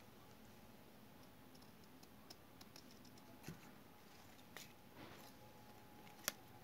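Scissors snipping and handling thin paper strips: a few faint clicks and soft rustles over near silence, with one sharper click near the end.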